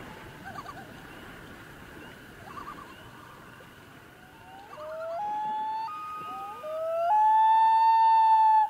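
Soundtrack music closing out: a faint sustained tone, then a melody line of a few notes that each slide up into pitch, ending in a long held note, the loudest part, that stops suddenly.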